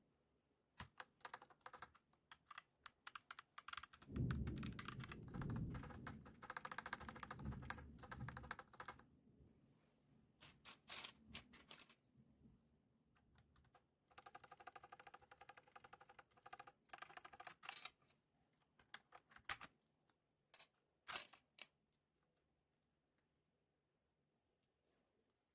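Typing on a mechanical keyboard with Akko CS Lavender Purple tactile switches and PBT pudding keycaps: irregular key clacks that build into two fast runs of typing, the first with heavier low thocks, then thin out to scattered single presses near the end.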